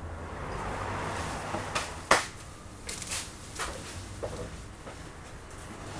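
Rustling of fibrous insulation wool being pulled apart and pressed into the gap around a roof window frame by gloved hands, with a few sharp clicks and knocks, the loudest about two seconds in.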